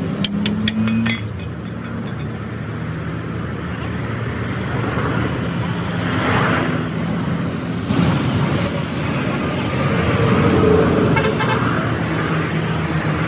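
Road traffic running steadily with engine rumble and vehicles passing. A quick run of sharp metallic clinks comes in the first second, with a knock and a brief rattle later on.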